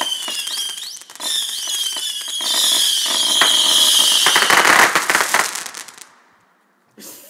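A 300-shot Saturn missile battery firing: a rapid stream of whistling rockets with a dense run of small pops, stopping about six seconds in.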